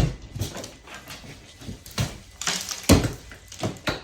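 Old plaster being pulled off a wall, breaking away in chunks that knock and crumble as they come off and fall. There is a sharp knock right at the start and several more in the last two seconds.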